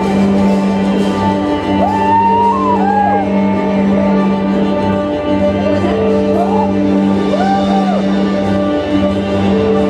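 Music: a song with a steady low drone and held chord tones under a high sung vocal line that swoops up and down in phrases, about two seconds in and again near eight seconds.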